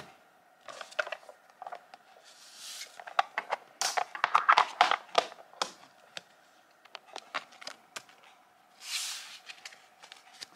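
Sheets of nail water-slide decals being sorted by hand: paper rustling and crinkling with many light taps and clicks, and two brief swishes, about two and a half seconds in and near nine seconds.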